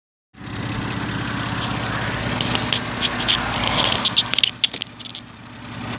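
Turbocharged Ford Probe 2.5 V6 engine revving up, then dropping off sharply about four seconds in. A quick run of chattering turbo flutter comes around the throttle lift: compressor surge as the throttle closes.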